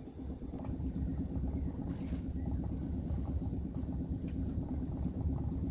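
Small open boat's motor running steadily under way, a low hum that grows a little louder in the first second.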